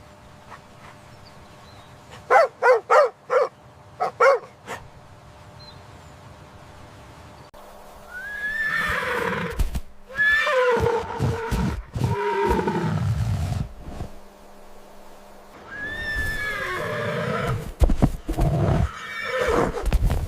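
A horse whinnying: two long neighs, the first about eight seconds in and the second about sixteen seconds in, preceded by a quick run of about six short calls.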